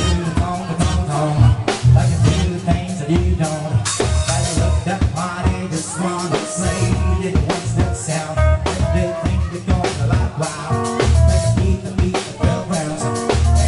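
Live dance band playing an upbeat number: a steady drum-kit beat under electric keyboards.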